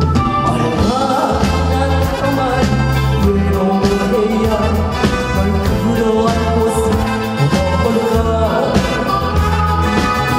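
A woman singing live into a microphone, backed by a band with a steady bass line and a regular beat, with guitar and violin in the accompaniment.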